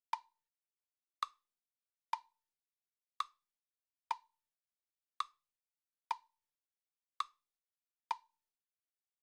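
Clock ticking: a single sharp tick about once a second, with silence between the ticks.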